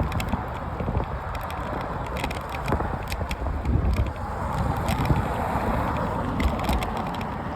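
Bicycle rolling over pavement with wind buffeting the microphone, a steady rumbling rush with scattered small rattles and clicks.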